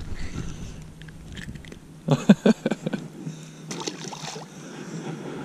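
Close knocks and rustles of hands handling the lure and fish, loudest about two seconds in, then a small bass tossed back splashing into the lake water shortly before four seconds.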